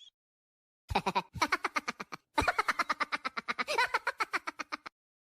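Comic laughing sound effect: two runs of rapid, staccato laughter, a short one starting about a second in and a longer one after a brief gap, then it stops abruptly.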